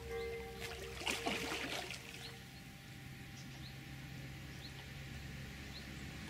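A hooked carp splashing at the surface close to the bank as it is played on the rod, a short burst about a second in. Faint bird chirps repeat throughout, and background music fades out about two seconds in.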